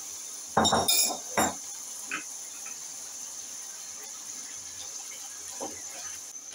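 Black spatula stirring wet ground spinach into a pot of turnip and chicken curry. It makes a few louder scrapes and knocks against the steel pot in the first second and a half, then quieter stirring over a steady faint hiss.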